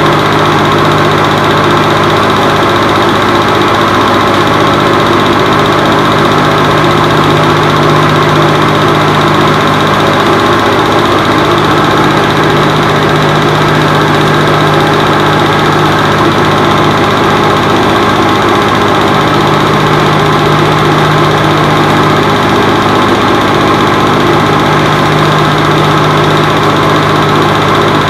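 Film projector running: a steady, loud motor hum and whir that never lets up.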